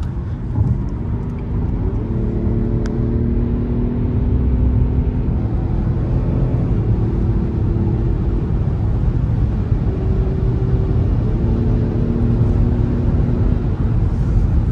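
Car engine and road noise heard from inside the cabin at highway speed: a steady low rumble with an engine drone that holds its pitch for a few seconds at a time, then shifts or slides up.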